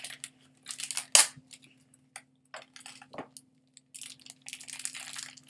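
A Num Noms toy package's plastic cup and peel-off lid crinkling and tearing by hand as it is opened. The sounds come in short irregular bursts, with a sharp crack about a second in and denser crinkling near the end.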